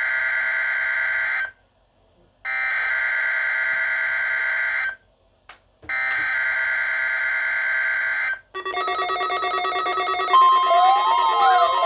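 NOAA Weather Radio EAS test signal: the digital SAME header, a harsh screeching data tone sent in repeated bursts about two and a half seconds long with about a second of silence between them, the end of one burst then two more. About eight and a half seconds in, a dense mix of steady and wavering electronic tones takes over, joined about ten seconds in by a loud steady tone.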